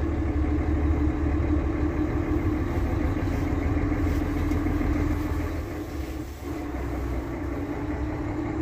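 Semi-truck's diesel engine running as the truck drives slowly, heard from inside the cab: a steady low drone with a hum, dipping briefly about six seconds in.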